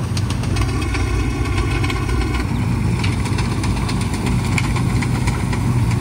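Combine harvester running steadily while cutting wheat, its engine and machinery giving a continuous low drone. A higher whine with several even overtones sounds for about two seconds near the start.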